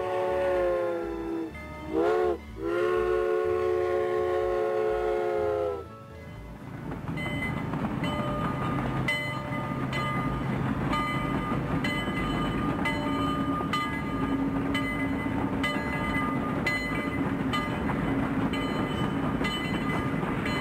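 A train horn sounds a long blast, a short toot and another long blast lasting several seconds. The train then rolls on with a steady rumble and repeated clicking of its wheels over the rails.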